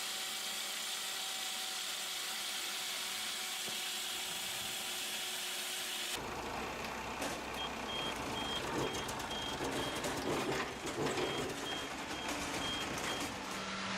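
Heavy wood-processing machinery running with a steady hum; about six seconds in the sound changes abruptly to machine clatter, over which a high electronic backup alarm beeps repeatedly in two runs.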